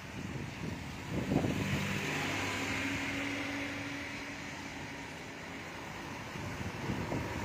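A motor vehicle's engine running close by, setting in about a second in with a steady hum, over a continuous rushing noise from the swollen floodwater and wind.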